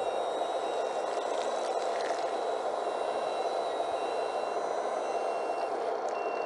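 Small electric suction blower of a 1:15 scale RC suction excavator truck running steadily, a level rushing hiss with a faint high whine over it.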